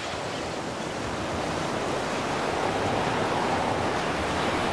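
Ocean surf washing on a rocky shore: a steady rush that grows a little louder after about a second.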